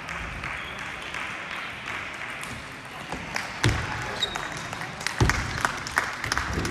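Table tennis balls clicking off bats and tables, with a loud knock about three and a half seconds in and a quick run of clicks in the last second or two. Ball clicks from other tables and a murmur of voices carry through a large hall.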